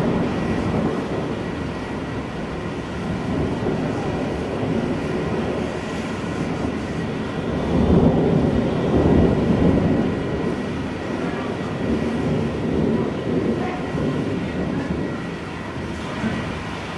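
Thunder rolling in a long continuous low rumble, swelling to its loudest about eight seconds in and then slowly easing off.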